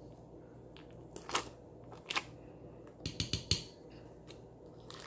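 Metal spoon scraping cream cheese from a crinkly foil wrapper and knocking against the glass blender jar as the cheese drops in. A few scattered clicks and knocks, with a quick run of taps a little past halfway.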